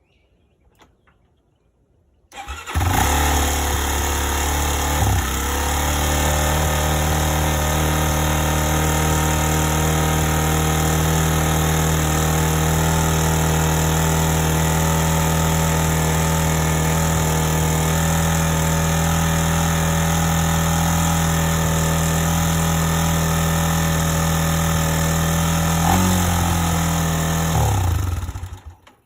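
Freshly rebuilt Honda TRX400 ATV's single-cylinder four-stroke engine starting and running steadily, held up above idle by a throttle that is set too tight. It picks up briefly near the end, then shuts off.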